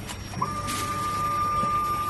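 Automatic laser welding machine running on a steel cylinder: a steady high whine starts about half a second in and holds, over a low machine hum.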